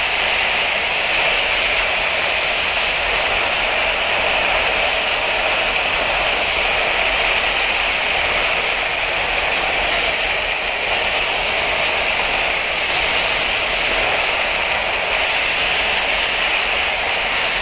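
Steady loud sizzling hiss of frozen bitter gourd slices sautéing in hot oil in a pan.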